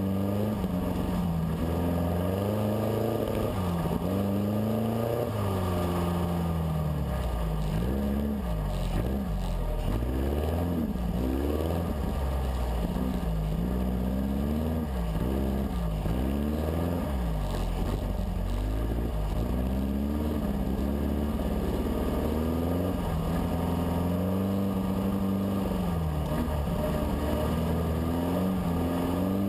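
Dune buggy engine running under constantly changing throttle while driven over sand, its pitch rising and falling every second or two.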